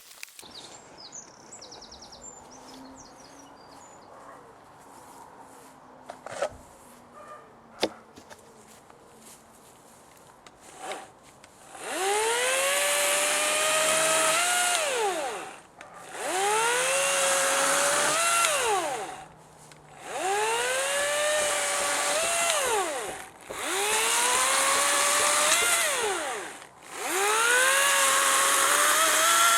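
Battery-powered electric chainsaw run in five bursts of about three seconds each, the motor whining up in pitch, holding, then winding down between bursts, as it cuts up a fallen branch. Before the first burst there is a quieter stretch with a few light knocks.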